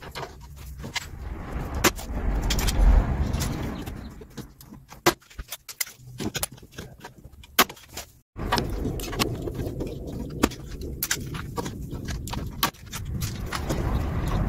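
Hand work on a car's steel chassis rail: a run of sharp metal clicks and clinks as a small steel bracket is handled and riveted on with a hand rivet gun.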